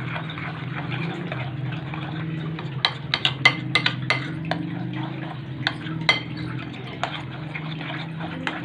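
A metal spoon stirring a thin yogurt marinade in a glass bowl, with a soft wet swish. It clinks against the glass in a quick run of taps about three to four seconds in and twice more around six seconds, over a steady low hum.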